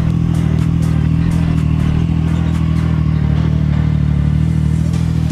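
Triumph Street Triple 765 RS's inline three-cylinder engine idling steadily.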